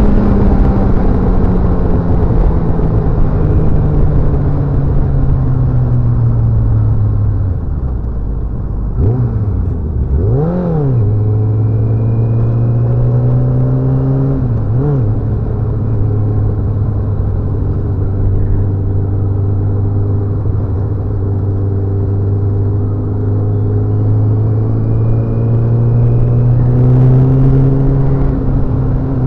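Motorcycle engine running under way. Its pitch drops over the first several seconds as it slows, then holds steady, with a few quick throttle blips that rise and fall near the middle.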